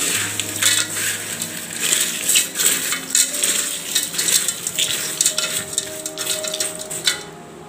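A hand tossing crisp fried mixture snack (sev, boondi, peanuts and roasted gram) in a metal bowl: a steady stream of dry, crackly rustling with hard bits clinking against the metal, dying down near the end.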